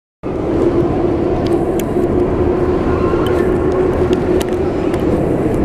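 Bus engine running with a steady hum over a rumble of traffic noise, with a few sharp clicks.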